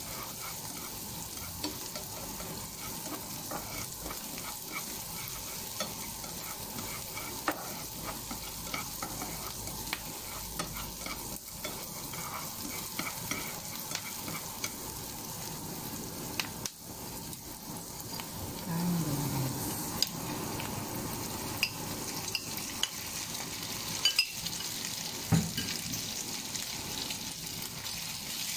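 Diced onion and garlic sizzling in hot oil in a nonstick frying pan while being stirred, the utensil scraping and tapping against the pan. There are a few sharper taps in the second half.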